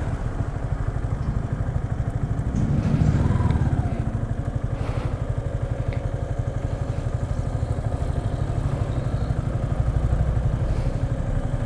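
Yamaha R15 V3's single-cylinder engine running at low revs with a steady, rapid pulse as the bike crawls over a rough dirt road, with some clatter.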